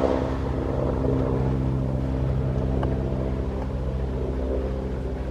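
Bell 412EP twin-turbine helicopter flying past, its four-bladed main rotor beating rapidly under a steady turbine drone, easing slightly after the first second.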